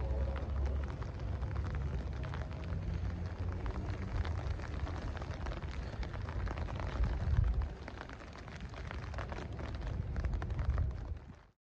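Heavy rain falling, heard as a dense crackle of drops over a low rumble on the microphone, with a louder swell about seven seconds in; it cuts off abruptly near the end.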